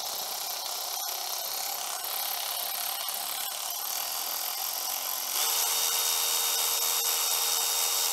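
Power drill spinning the valve spring compressor's threaded rod to back it off and release the compressed valve spring. A steady motor whir that gets louder, with a thin tone added, about five seconds in.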